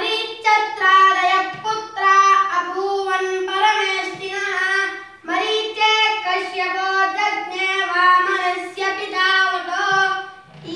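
A boy chanting a Sanskrit verse in a sung recitation, one clear child's voice holding long, steady notes in two long phrases with a short breath break a little past halfway.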